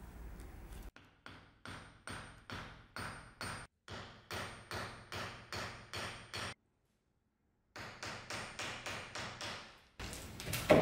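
Light hammer taps riveting the steel pins through a horn knife handle resting on an anvil, about three even strikes a second with a faint metallic ring. There is a short break in the middle, and one heavier knock at the very end.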